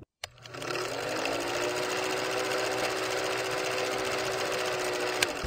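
Film projector running: a steady, rapid mechanical clatter with a faint hum, starting after a brief gap.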